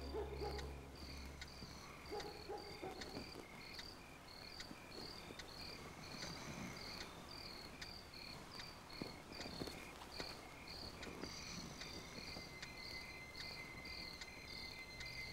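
A cricket chirping at night: a faint, even, high chirp repeating about three times a second.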